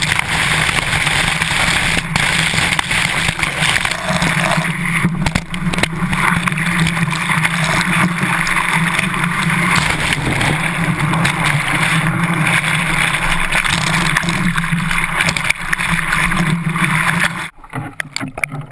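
Water rushing loudly and steadily past a GoPro in its waterproof housing mounted on the tail of a longboard surfboard riding through whitewater. About a second before the end it breaks up into choppy splashes and drop-outs as the camera dips into the water at the surface.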